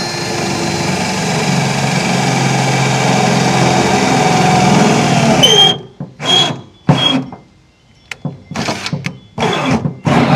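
Power drill running steadily under load as it bores a hole, then winding down about five and a half seconds in. It is followed by several short bursts as the drill is triggered again to finish the hole through.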